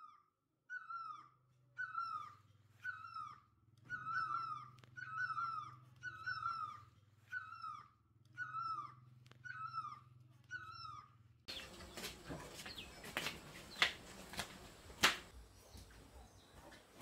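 An animal crying over and over, about twice a second, each cry short and falling in pitch, over a low steady hum. About eleven and a half seconds in it breaks off abruptly, giving way to scattered knocks and handling noise.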